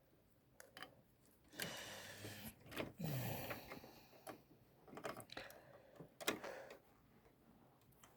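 Scattered clicks, taps and short rustles of plastic parts and cables being handled as an original Xbox's front board is fitted back into the console case, with a sharper click a little past six seconds in.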